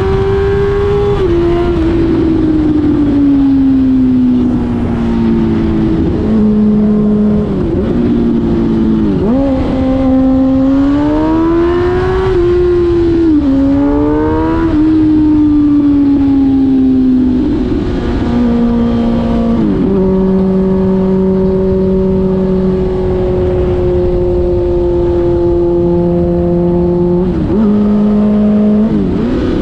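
Suzuki GSX-R1000 K5 inline-four motorcycle engine through an open exhaust with the dB-killer removed, at highway speed. The revs fall and climb again several times, with quick jumps in pitch at the gear changes, then hold steady for several seconds before a last dip and rise near the end, over a low rush of wind and road noise.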